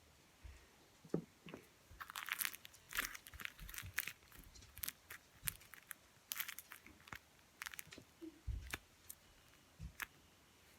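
Faint, irregular crinkling and crackling of a homemade paper-and-tape squishy being handled and squeezed.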